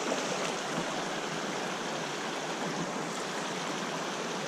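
Shallow, rocky creek running over cobbles: a steady rush of moving water.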